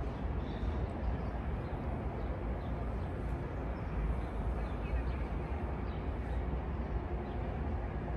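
Steady city street ambience: a low rumble of traffic, with a few faint high chirps.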